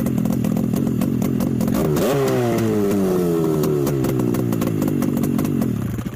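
Freshly rebuilt Buran snowmobile two-stroke twin running on its second break-in start. It runs steadily, is revved once about two seconds in with the pitch sliding slowly back down, and is shut off just before the end.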